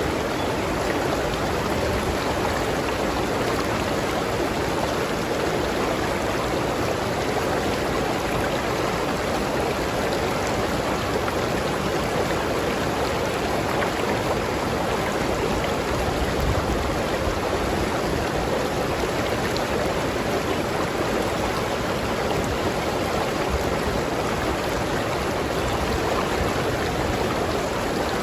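River water flowing steadily over rocks in a tropical stream, a constant rushing and babbling.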